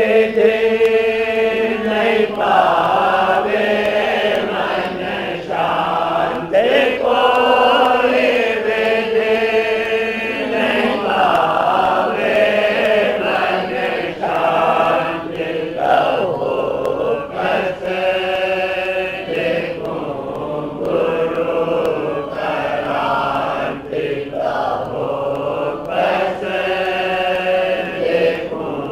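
Devotional Hindi hymn (a Radhasoami shabad) sung in a chant-like style, in long wavering phrases of a few seconds each with short breaks between.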